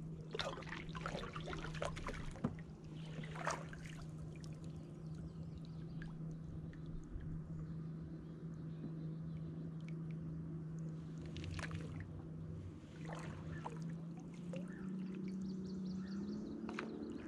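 Kayak paddle strokes: the blades dip and drip into the water with a few soft splashes. Underneath is a steady low hum that starts rising in pitch near the end.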